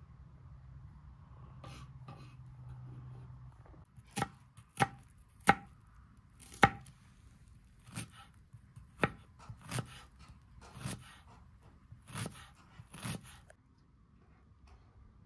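Knife chopping food on a cutting board: about ten single strokes, roughly a second apart, starting a few seconds in.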